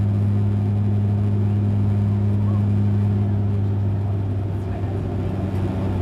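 Cabin drone of a Bombardier Q400's propellers in flight: a steady low hum with one strong low tone and a second tone an octave above, over a rush of engine and air noise. The level dips a little near the end.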